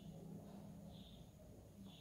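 Near silence: room tone with a faint low hum and soft high-pitched chirps about once a second.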